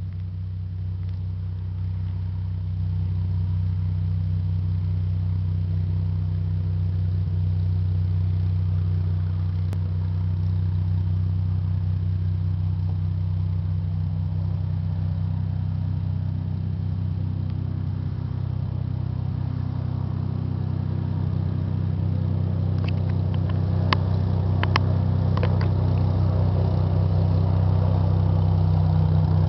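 Cessna 206 single-engine piston plane taxiing, its engine and propeller running at a steady low drone that slowly grows louder as the plane comes closer.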